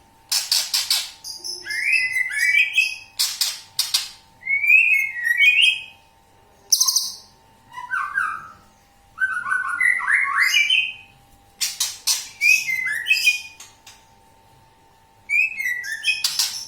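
Green leafbird (cucak ijo) singing vigorously in bursts of quick chirps, slurred whistles and harsh rasping notes, running through its mimicked repertoire, with short pauses between phrases. A faint steady hum lies underneath.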